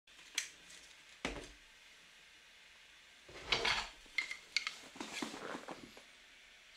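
Faint scattered clicks and light clinks, some with a brief ringing tone, and a short swishing noise about three and a half seconds in.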